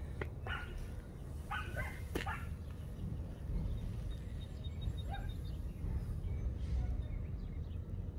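A dog barking and yipping in a few short bursts, mostly in the first couple of seconds and once more past the middle, over a steady low rumble.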